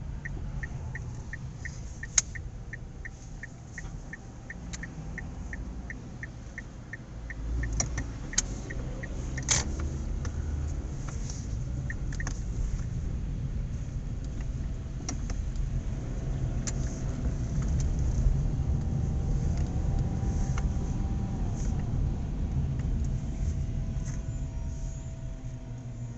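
Car cabin noise: a low engine and road rumble, with an even, fast ticking for the first ten seconds or so and a few sharp clicks. No music comes from the head unit here, which fits the music cutting out.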